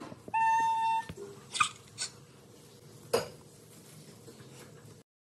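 Hamsters scrabbling in wood shavings inside a plastic cage: scattered rustles and light clicks, with a short, steady, high tone near the start. The sound cuts off sharply near the end.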